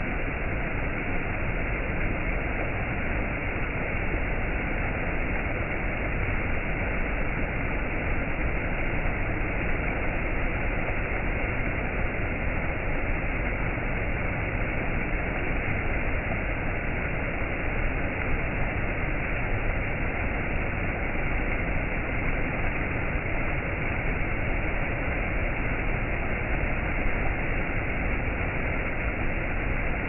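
Water of a rocky mountain stream rushing and splashing over low rock ledges and small cascades, a steady, unbroken rush.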